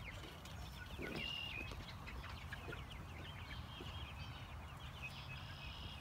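Young chickens making short, high calls and soft clucks. A steady low background hum runs underneath.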